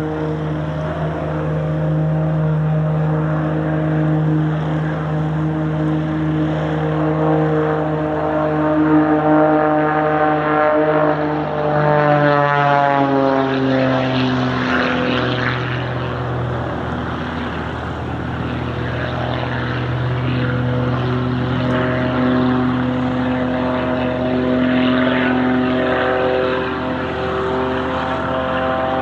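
Propeller aircraft flying past, its engine and propeller note steady and then dropping in pitch about halfway through as it passes.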